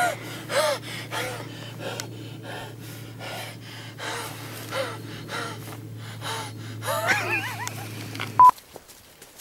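A man gasping and wheezing in a run of short, repeated breaths, with a wavering high vocal sound near the end. About eight seconds in, a short, loud electronic beep sounds, and a steady low hum underneath stops at the same moment.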